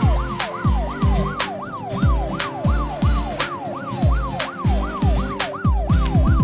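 Electronic emergency-vehicle siren sound effect, a fast wail sweeping up and down about three times a second, over backing music with a steady thumping beat.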